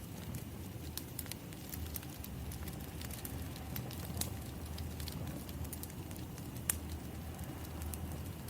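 Wood fire crackling: scattered sharp pops and snaps over a steady low rumble, with one louder pop about two-thirds of the way through.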